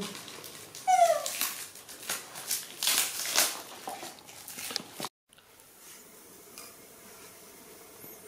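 A young animal gives one short, high, falling squeal about a second in, followed by a few seconds of clicking and rustling. The sound cuts off abruptly about five seconds in, leaving faint room tone.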